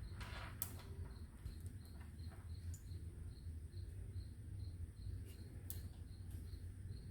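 Cricket chirping steadily, about three short high chirps a second, over a low steady hum, with a few soft clicks of beads being handled.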